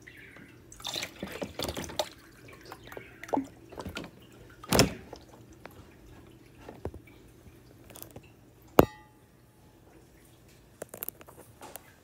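Water sloshing and dripping in an upturned plastic jug as it is fitted onto an espresso machine's water tank, with plastic knocks and handling. One sharp clack with a short ring comes about nine seconds in.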